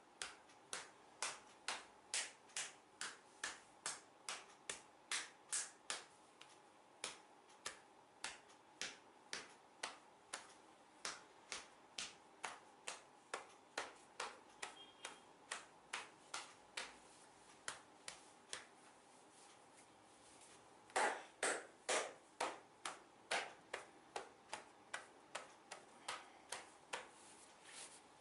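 Rhythmic percussive hand strikes of a head massage, the back of the hand tapping the head, about two to three a second. The taps pause briefly about twenty seconds in, then come back louder for a few strokes.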